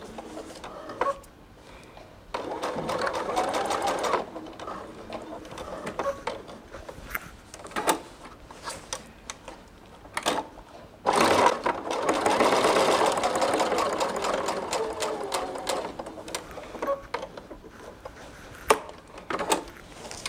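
Sewing machine top-stitching around the top edge of a fabric handbag. It runs in stop-start bursts, a short run early and a longer one beginning about eleven seconds in, with light clicks in the pauses between runs.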